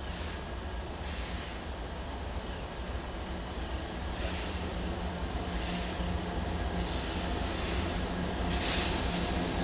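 Norfolk Southern freight train approaching behind three diesel-electric locomotives: a steady low engine drone that grows louder as it nears, with several brief high-pitched bursts over it.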